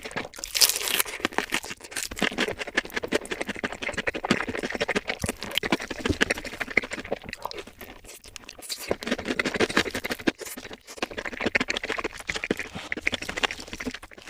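Close-up eating sounds: continuous chewing and crunching of crispy fried fast food, a dense run of small crackles and clicks with brief pauses about nine and eleven seconds in.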